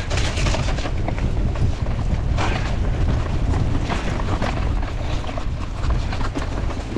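Hardtail mountain bike clattering and thudding as it rides down over roots and rough dirt, with many short knocks over a constant low rumble.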